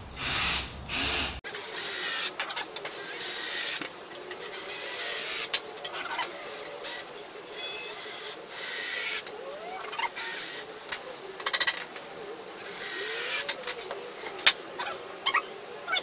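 Cordless drill driving screws into wooden boards in a run of separate bursts, each lasting one to two seconds, the motor's pitch rising and falling as each screw goes in.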